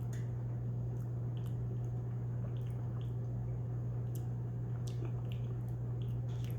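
Soft wet mouth clicks of someone chewing a thick, pasty mouthful of hot sauce and pepper powder, irregular and about one or two a second, over a steady low electrical hum.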